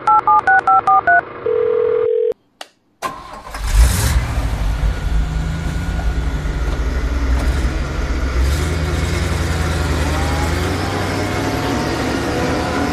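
Telephone keypad tones dial about seven digits, followed by a steady dial tone. After a brief silence a truck engine starts with a sudden burst about four seconds in and keeps running with a low rumble, its pitch rising slowly near the end.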